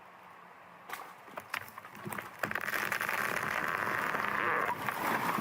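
A few faint crackles and snaps, then from about two and a half seconds in a chainsaw running steadily while cutting, growing slightly louder.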